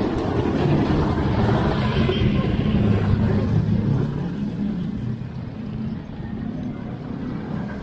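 Small motorcycle and scooter engines running as they pass close by on a narrow street. The engine hum is loudest in the first few seconds and eases after about five seconds.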